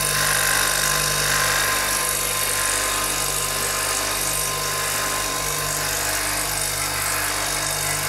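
Refrigeration vacuum pump running steadily with an even hum and hiss, pulling a vacuum on a freezer's refrigeration circuit after a leak repair.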